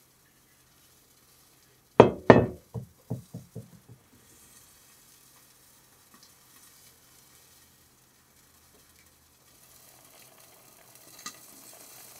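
A heavy enamelled pot lid set down with a clatter, rocking to rest in a run of quickening, fading knocks. Near the end, a faint simmering from the pot.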